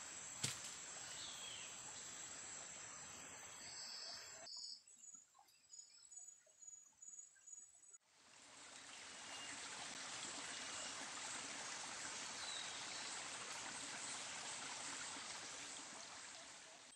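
Forest ambience: a steady high insect trill with a sharp click about half a second in. Then a quieter stretch with faint ticks, and from about eight seconds a steady, even hiss.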